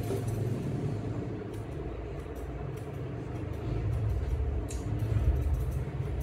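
A low steady rumble that grows louder in the second half, with faint light ticks above it.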